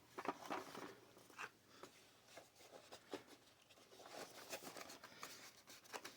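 Faint handling of a cardboard board-game box and its pieces: soft rustles and scattered light clicks.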